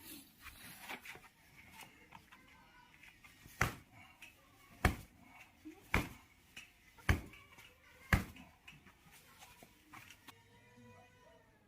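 A series of sharp knocks, five loud ones about a second apart, with fainter taps and clicks between them.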